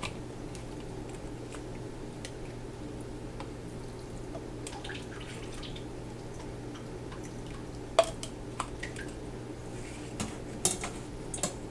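Chicken broth dripping through a mesh strainer and canning funnel into a glass mason jar, with light ticks, over a steady low hum. A sharp clink of kitchenware against glass about eight seconds in is the loudest sound, with a few more clinks near the end as the strainer and funnel are set aside.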